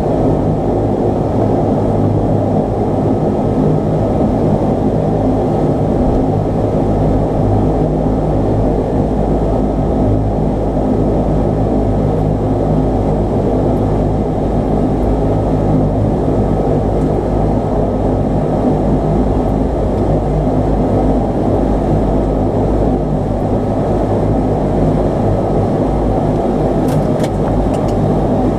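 Twin Pratt & Whitney Canada PW123-series turboprops of a Dash 8-300 running at taxi power, heard from inside the aircraft as a loud, steady drone with a low propeller hum.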